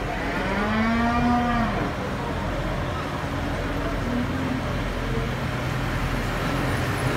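A cow mooing once, a long call that rises and falls in pitch, starting just after the beginning, over a steady background noise.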